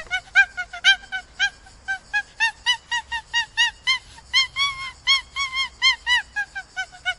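A monkey giving a rapid run of short, high, pitched calls, about three to four a second. Each call rises and falls in pitch, and the calls grow a little longer and lower around the middle of the run.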